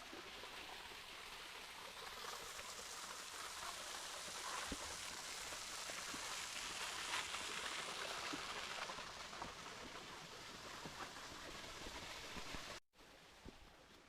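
Running water: a steady rushing hiss with faint scattered crackles, swelling a little in the middle, then dropping suddenly to a quieter background a little before the end.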